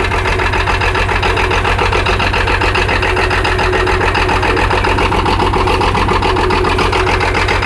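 International Harvester 656 tractor's six-cylinder diesel engine idling steadily with an even, rapid beat, warming up just after a cold start.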